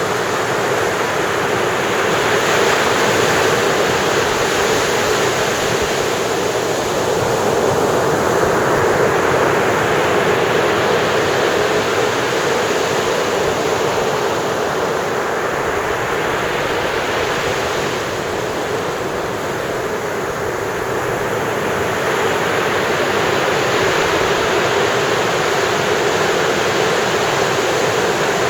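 Ocean surf breaking and washing up the beach: a continuous rushing that swells and eases over several seconds as each wave comes in.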